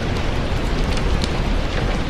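Steady rain with a low rumble underneath and scattered small sharp ticks.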